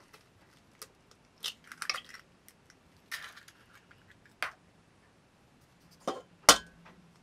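Eggs being tapped and cracked on the rim of a cooking pot: scattered knocks and clinks, the two loudest close together near the end.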